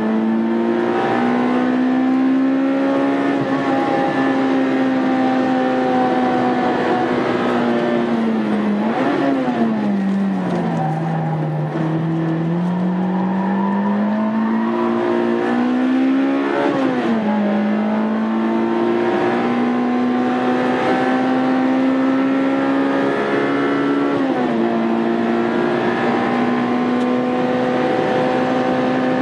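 Honda Integra Type R engine running hard on a race circuit. Its pitch climbs slowly through each gear. Roughly a third of the way in it falls away and builds again, and there are sharp jumps at gear changes a little past halfway and again later.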